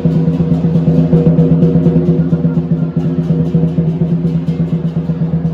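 Music with a fast, steady drumbeat over held low tones.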